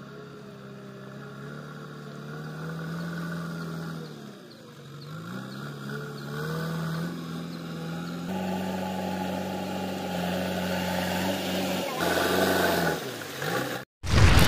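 JCB 3DX backhoe loader's four-cylinder diesel engine running and revving up and down as the machine works in mud. The engine dips about four seconds in, picks up again and runs higher from about eight seconds. It stops just before the end, where a sudden loud hit begins.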